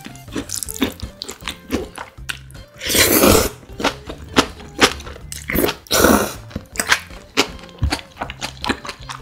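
Close-miked eating of spicy bibim noodles with young radish kimchi: many sharp, crisp crunching and chewing clicks, and two long noisy noodle slurps, about three and six seconds in.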